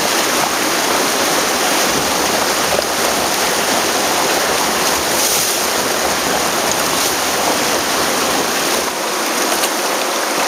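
Rushing whitewater of river rapids churning around a kayak's bow: a loud, steady hiss of water. About nine seconds in, the low rumble drops away and the water sound goes on lighter.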